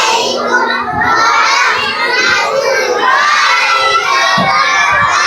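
A class of young children shouting together in chorus, many voices overlapping, calling out the Islamic greeting "Assalamu alaikum" to their teacher.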